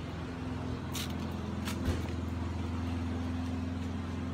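Steady low engine hum, with a couple of faint clicks about one and two seconds in.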